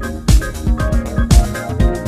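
Electronic background music with a steady kick-drum beat, about two beats a second, under held synth chords.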